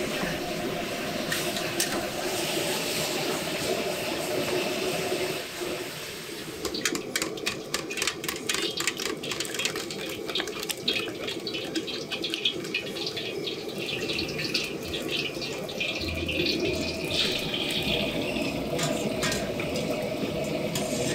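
A metal spatula stirs braised pork in a steel pan. A utensil then beats eggs in a steel bowl with quick, even clicks, about five a second. Near the end, beaten egg is poured into hot oil in a wok and sizzles.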